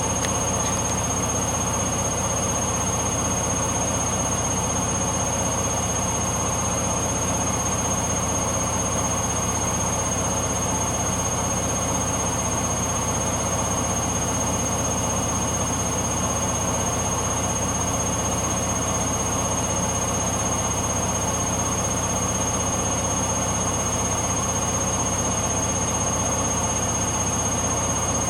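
Hoover Dynamic Next washing machine in its final spin at about 1000 rpm: steady drum and motor rush with a constant high whine. The spin was set to 1200 rpm; the owner believes the rapid cycle limits it to 1000.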